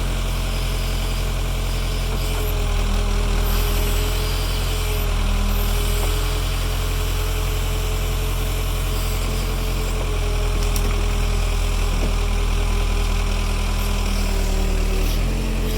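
Backhoe's diesel engine running steadily, swelling a little several times as the hydraulics take the load of the bucket working through floodwater.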